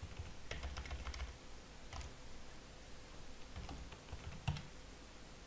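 Computer keyboard typing: a handful of separate, faint keystrokes spread out over a few seconds.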